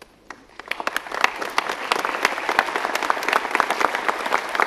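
A crowd applauding: a few scattered claps at first, swelling into dense, steady applause by about a second in.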